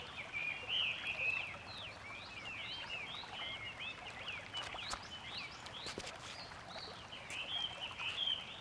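A chorus of small birds chirping: many short, overlapping rising and falling chirps, high-pitched and continuous, over a faint outdoor hiss.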